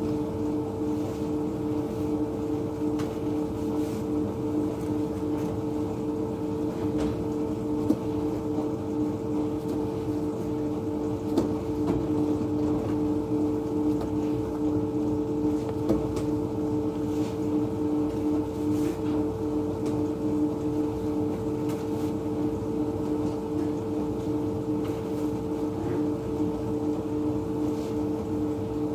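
Steady hum of bakery machinery, with two held tones over an even whirring noise, unchanged throughout, and a few short knocks.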